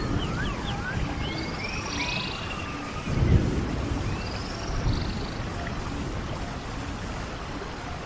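Rainforest ambience in rain: a steady rain hiss with frogs croaking in short low notes throughout. Birds whistle in rising and falling calls over the first half, and a low rumble swells about three seconds in.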